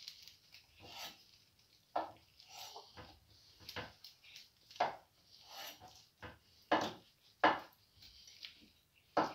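A kitten chewing lettuce leaves inside a plastic salad bag, with the bag crinkling. The crunches come irregularly, roughly one every second or so, and are sharpest in the second half.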